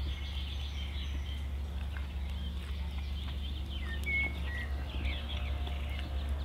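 Small songbirds chirping and whistling, many short calls with one clearer held whistle about four seconds in, over a steady low rumble.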